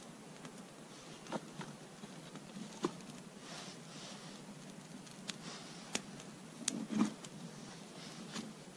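Small kindling fire crackling, with irregular sharp pops and snaps over a faint steady hiss; a louder cluster of snaps comes about seven seconds in.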